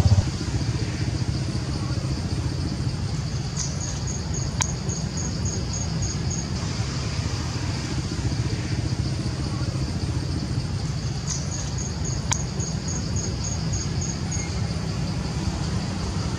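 Outdoor ambience: a constant low rumble with a steady high hiss above it. Twice, about four seconds in and again about eleven seconds in, a run of rapid, evenly spaced high chirps, about four a second, lasts about three seconds.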